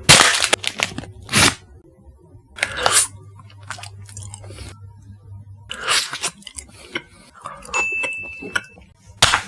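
Close-up bites and chewing of cookies-and-cream ice cream: a series of short, sharp crunches, about six, separated by quieter gaps.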